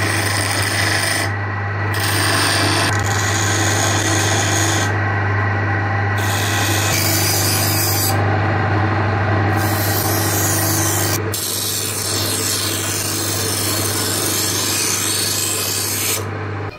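A half-horsepower electric motor running with a grinding stone on its shaft, humming steadily, while steel knife blades are pressed against the spinning stone. The grinding is a harsh hiss that stops briefly several times between strokes and blades.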